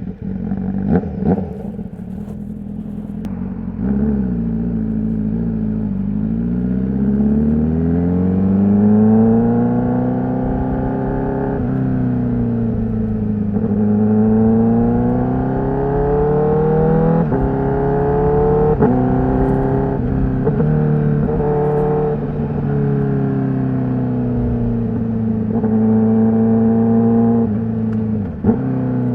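Honda CBR1000RR-R SP's inline-four engine with its stock exhaust, which starts up suddenly and then runs through several slow rises and falls in pitch as it is throttled up and down, broken sharply a few times by what sound like gear changes.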